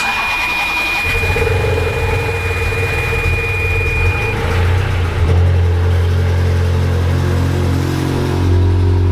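Ferrari F430's V8 engine cranking roughly on the starter for a few seconds, then catching about five seconds in and settling into a steady idle. The rough start comes from a depressurized fuel line after a fuel pump replacement, with the pump having to catch up. A steady high beep sounds over the first few seconds.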